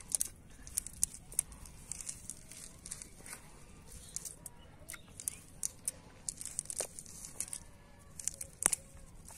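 Irregular dry rustling and crackling as a cast net is handled on dry grass and mud, with two sharper clicks in the second half.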